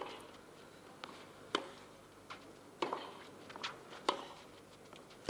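Tennis ball being hit back and forth on a clay court: about seven sharp pocks of racket strikes and ball bounces at irregular half-second to one-second intervals, over faint court ambience.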